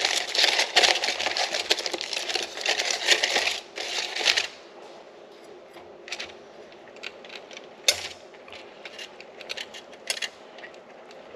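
Aluminium foil crinkling densely for about four seconds as a foil-wrapped baked fish is opened up, then a few scattered light clicks and taps.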